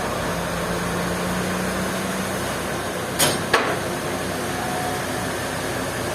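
Steady machinery running, with two sharp knocks about a third of a second apart a little past halfway through.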